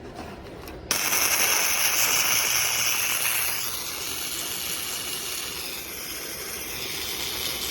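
Flux-core MIG welding arc striking about a second in, then running as a steady sizzling hiss, loudest for its first couple of seconds.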